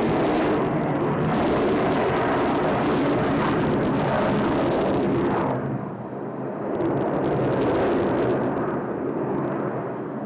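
Sukhoi T-50 PAK FA fighter's twin turbofan jet engines: loud, dense jet noise that drops abruptly about five and a half seconds in, swells again briefly, then fades away near the end.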